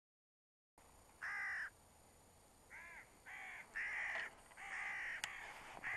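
Crow cawing: a series of about six short, harsh caws, the first coming about a second in after a moment of silence.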